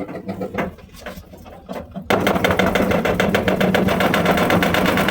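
Sanyo top-load fully automatic washing machine in spin mode, making a loud, rapid mechanical clatter over a steady hum. This is the abnormal spin-cycle noise. It starts suddenly about two seconds in and cuts off sharply at the end.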